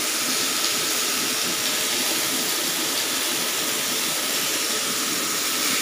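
Chicken pieces sizzling on a grill pan over a portable butane gas stove: a steady hiss.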